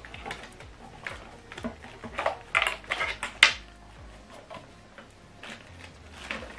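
Handling noise as a soundbar cable and tower are picked up and moved about: a run of small clicks and clatters, busiest in the middle, with one sharp knock about three and a half seconds in.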